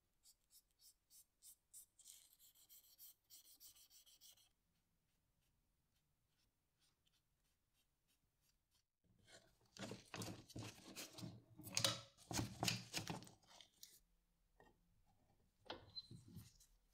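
Cotton swab rubbing excess glue off a freshly glued wooden knife handle in quick, short scratchy strokes, then a louder, denser stretch of rubbing and wiping from about halfway in.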